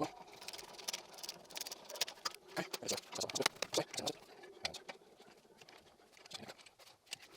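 Irregular light clicks and taps of metal brake parts being handled while a caliper bolt is threaded in by hand, busiest for the first few seconds and sparser near the end.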